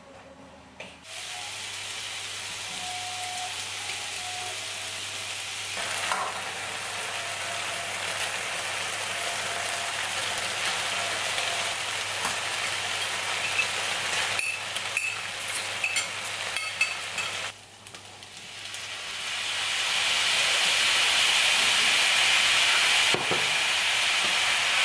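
Chicken and sliced onion, later rice and vegetables, sizzling in a frying pan as they are stirred with a spatula, with a few short clicks partway through. The sizzle grows much louder in the last few seconds.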